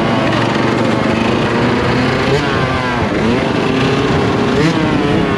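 Yamaha YZ125's single-cylinder two-stroke engine running under throttle while ridden. Its pitch holds, then dips and climbs again about three seconds in.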